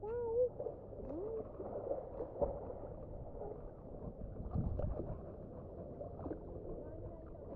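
Muffled pool-water sound picked up by a GoPro Hero 8 Black held underwater: a steady dull swirl of water, with muffled children's squeals in the first second or so and a few dull thuds near the middle.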